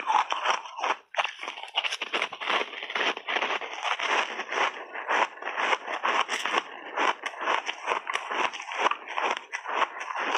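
Frozen ice balls being crunched and chewed in big bites close to the microphone: dense, rapid cracking and grinding with a brief pause about a second in.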